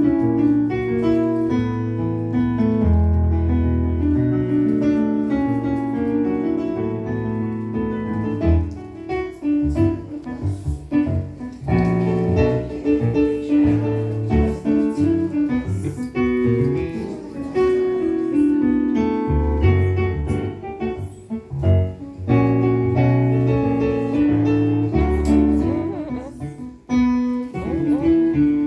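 Solo electronic keyboard played with a piano sound: held chords over low bass notes, breaking into quicker, more broken passages about a third of the way in and again near the end.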